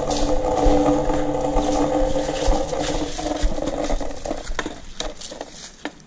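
Skateboard wheels rolling down a concrete water slide inside a tunnel: a steady rumble with a hum that fades over the last couple of seconds as the board slows to a stop, with a few knocks near the end.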